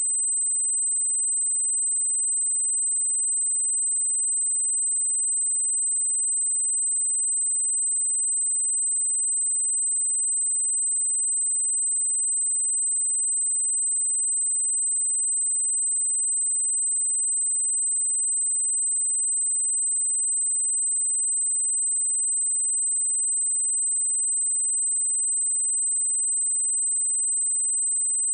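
A pure electronic test tone: a single steady sine wave at 8111 Hz, a constant high-pitched whistle at even level with no change.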